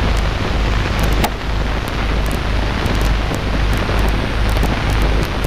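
Steady hiss with a low hum and scattered clicks and crackles: the background noise of an old film soundtrack.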